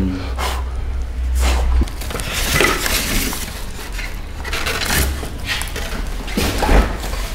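Crinkling plastic bags and a squeaking styrofoam insert being lifted out of a cardboard box, in irregular rustles, over a low hum that stops about two seconds in.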